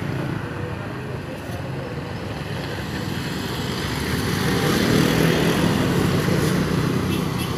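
Road traffic passing: motor scooters and a small box truck going by. The sound swells about halfway through as a group of scooters passes close, then eases.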